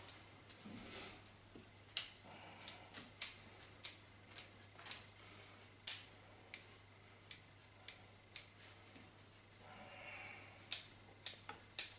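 Bonsai root scissors snipping through the roots of a Japanese maple during root pruning at transplant: a string of sharp, irregular snips, more than a dozen, spaced about half a second to a second apart.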